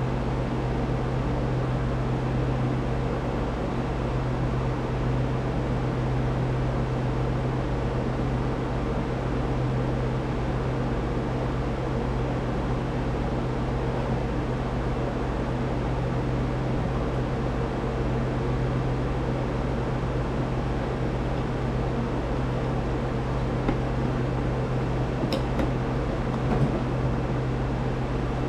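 Steady mechanical hum with a strong low drone and a hiss above it; a couple of light clicks near the end.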